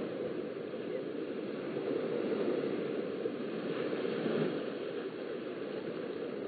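Small waves washing onto a sandy beach, with a steady rushing noise. A wave breaks and swells louder about four seconds in.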